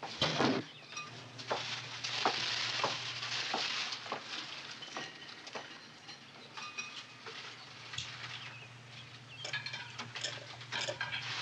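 An old television set being switched on and tuned: knob clicks, a steady low hum and a hiss of static, with a few light knocks.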